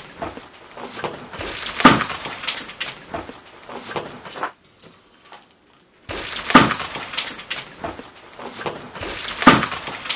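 Sharp crashing hits, three in all, each trailing off in a short falling ring, with a quiet gap of about a second and a half between the first and second.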